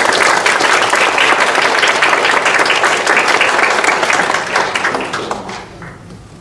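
Audience applauding for a graduate as she receives her diploma, the clapping fading out about five and a half seconds in.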